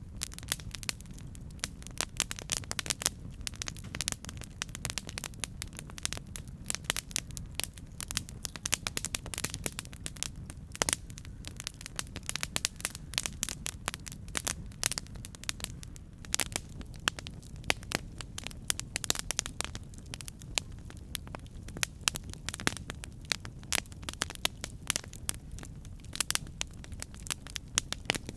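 Campfire burning, wood crackling and popping in many quick irregular snaps over a steady low rumble of the flames.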